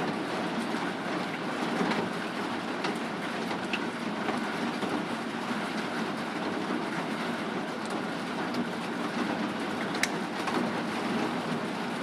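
Hail coming down hard: a dense, steady clatter of hailstones striking surfaces, with scattered sharper clicks of single stones, one especially sharp about ten seconds in.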